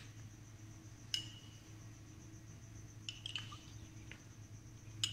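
A metal spoon clinking against a small ceramic cup a few times, about a second in, around three seconds in and near the end, as it scoops liquid to drizzle over a sponge cake. A steady low hum and a faint high whine run underneath.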